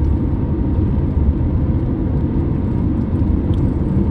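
Car driving on the open road, heard from inside the cabin: a steady low rumble of engine and tyre noise.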